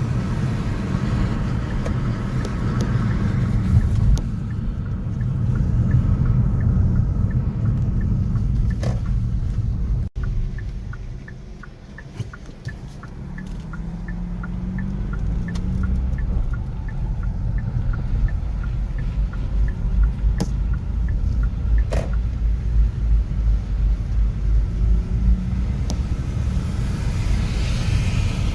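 City street traffic: a steady low rumble of cars and engines going by. The noise drops out sharply for an instant about ten seconds in and stays quieter for a few seconds before building back up, with a few sharp clicks scattered through.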